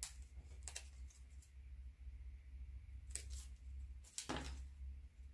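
Faint paper-handling noises: a few short rustles and scrapes of a small paper strip being handled, the longest about four seconds in, over a low steady hum.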